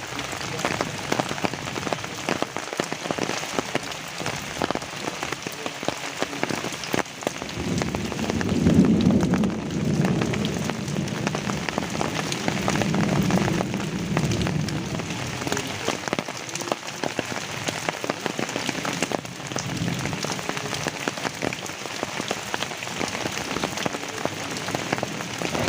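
Steady rain falling on tree leaves, a dense hiss full of individual drop ticks. Low rumbling swells rise about eight seconds in and again around thirteen seconds in.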